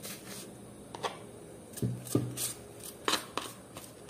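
Silicone pastry brush rubbing and dabbing butter over the top of a freshly baked bread in a metal baking pan: soft, irregular brushing strokes with light clicks, and a couple of dull knocks about two seconds in.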